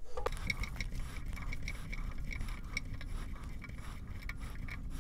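An Allen wrench turning the blade-height adjuster of a mini precision table saw, a steady run of small mechanical ticks and light grinding as the blade is cranked up to its maximum height.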